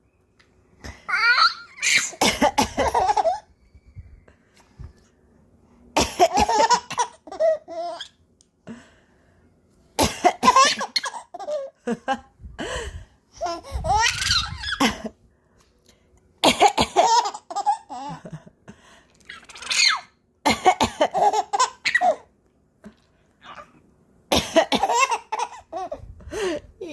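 A baby of about four and a half months laughing in fits, set off again and again by an adult's sneezes: about seven rounds of sneeze and baby laughter with short silences between.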